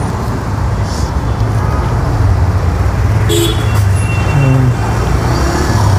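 Street traffic noise: a steady low engine rumble from nearby motor vehicles, with a brief higher-pitched sound about three seconds in.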